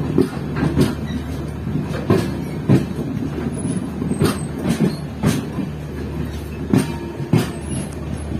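Passenger express train pulling slowly away from a station: a steady low rumble with irregular sharp clacks of the coach wheels over rail joints, about a dozen across a few seconds.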